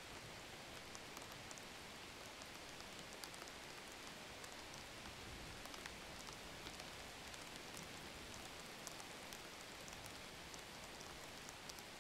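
Faint steady hiss with many soft scattered ticks, with no clear separate event.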